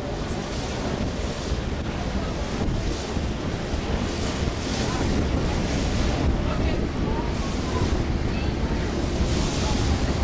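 Wind buffeting the microphone in gusts over a steady low rush of water, heard from the deck of a moving ship.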